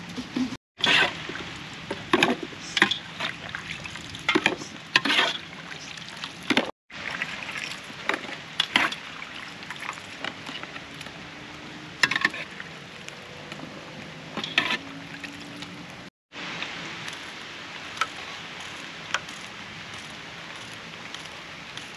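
Kitchen cooking sounds: a run of sharp knocks and clinks over a steady hiss, thinning out to the hiss with a few clicks near the end. The sound cuts out briefly three times.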